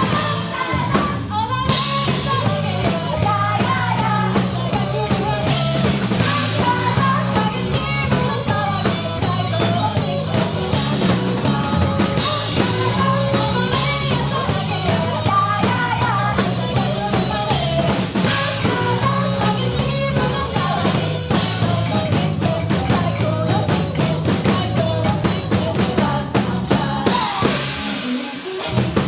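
Loud band music with a steady drum-kit beat of bass drum and snare, a bass line underneath and a wavering melody over it.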